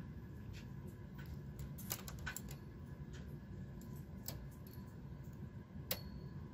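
Small, irregular metallic clicks of a hand transfer tool and latch needles on the needle bed of a Brother knitting machine as stitches are moved by hand for a decrease. Two louder clicks stand out, about two seconds in and near the end.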